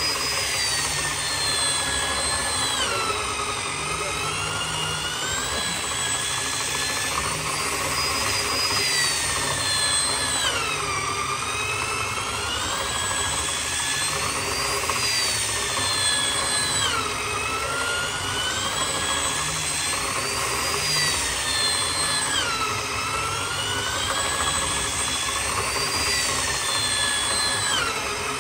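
Corded electric drill boring a long hole into the end of a solid hardwood slab with a long extension bit. Its whine drops in pitch under load about every six seconds and climbs back as the bit frees up.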